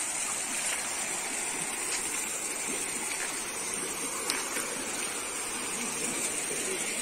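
Flowing river water, a steady rushing, with a constant high-pitched hiss over it.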